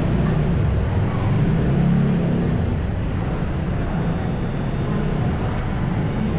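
City street traffic: vehicle engines running and passing close by, with a steady low rumble and an engine note that rises and falls during the first couple of seconds.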